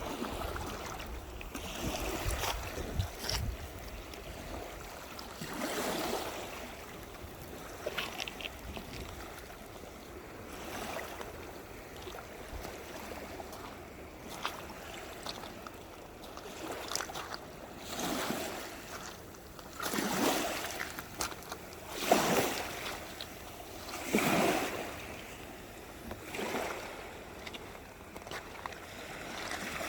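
Small sea waves washing in, a steady wash of water with surges that swell and fade every couple of seconds, the strongest in the second half. A low rumble sits under the first few seconds.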